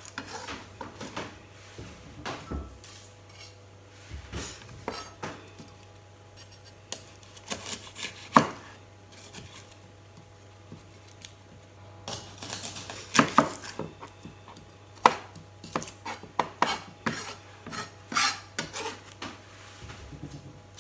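Chef's knife cutting and tapping on a plastic cutting board as the tips of garlic cloves are trimmed off: irregular sharp knocks, coming in quicker clusters about two-thirds of the way through.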